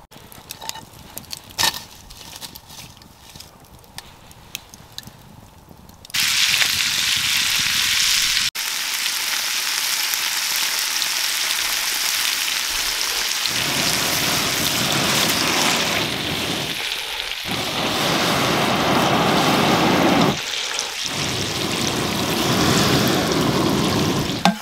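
Chicken pieces frying in oil in a frying pan over a campfire: a loud, steady sizzle starts suddenly about six seconds in and carries on. Before it there are only a few faint clicks and taps.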